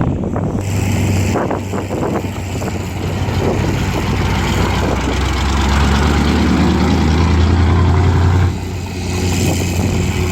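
Heavy diesel construction machine's engine running hard with a steady low drone, building in strength and then dropping back abruptly about eight and a half seconds in.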